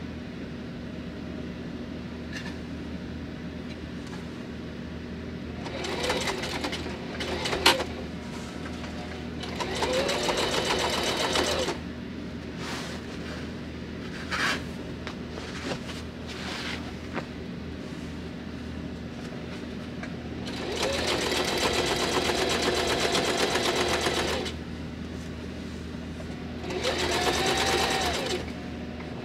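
Singer electric sewing machine stitching upholstery fabric in four short runs, the longest about four seconds. In each run it speeds up and then slows down. Between runs there is a steady low hum and a few sharp clicks.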